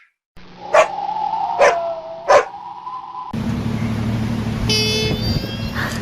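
A dog barking three times, about a second apart. Then the sound cuts to a different recording with a steady low hum and a brief high-pitched call.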